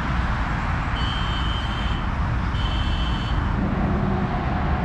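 Steady rumble of road traffic on a nearby roundabout. Two high, steady beeps of about a second each sound in the middle.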